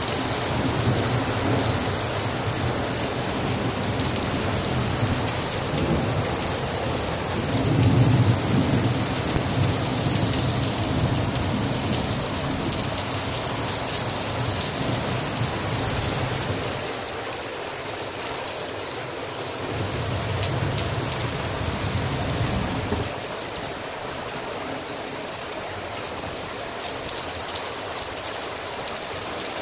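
Heavy rain in a thunderstorm: a steady hiss of rain pouring onto the street and parked cars. Low rumbles of thunder come in about eight seconds in and again around twenty seconds.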